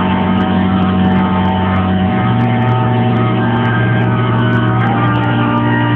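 Music of long held chords, the low note stepping up about two seconds in and new higher notes coming in near the end.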